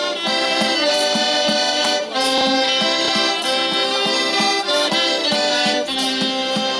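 Accordion playing a folk tune: sustained chords over a steady, even bass rhythm.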